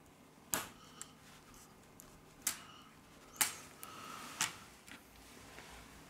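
Sharp clicks and taps of small parts being pressed and set into an opened Huawei Mate 20 Lite during reassembly: four distinct clicks spread over a few seconds, with fainter ticks between them.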